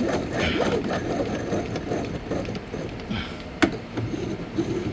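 Antique Yale hand-crank key machine being cranked, its cutter chattering steadily as it cuts a key, with a sharp click about three and a half seconds in.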